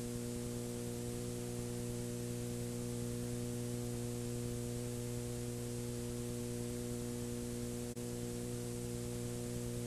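Steady electrical mains hum with a stack of even overtones, over a constant background hiss, with no program sound; one faint click about eight seconds in.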